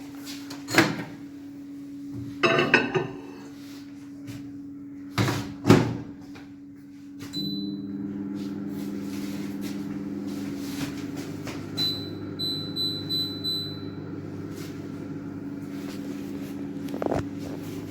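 Microwave oven with its door shut with knocks and clicks, then running with a steady hum that grows louder about seven seconds in as it starts heating. There is a short beep as it starts and a quick row of beeps about twelve to fourteen seconds in.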